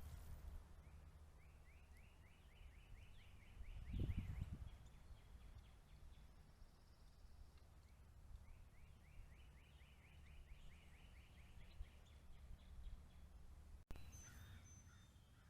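Faint bird song: a songbird's trill of quick, repeated down-slurred notes, sung twice, each lasting a few seconds. A low rumble comes about four seconds in.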